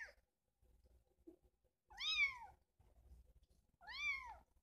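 Kitten meowing from inside a wire crate: the end of one meow, then two more about two seconds apart, each rising and falling in pitch. The kittens are hungry and crying for food.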